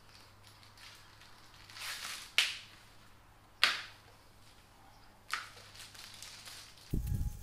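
Hand-handling noise: a soft rustle, then three sharp snaps a second or more apart, and a dull thump near the end, as small parts and their packaging are handled.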